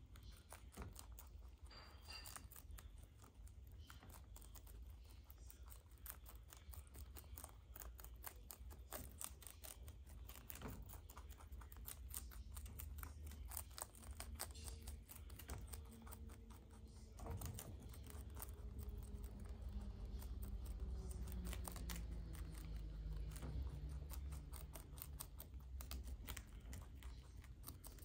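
Two baby rabbits chewing cabbage leaves: a fast, faint, continuous crunching and tearing of crisp leaf. A low hum runs underneath, and a few faint falling tones sound in the second half.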